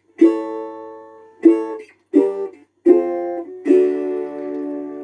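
Red Cashbox four-string cigar box resonator guitar with a continental-style resonator cone, strummed acoustically, unplugged: five chords, the last left to ring out. It has a ringy, banjo-like tone.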